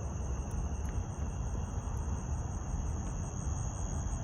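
Insects chirring in a steady, high-pitched drone with a faint even pulsing above it, over a continuous low rumble.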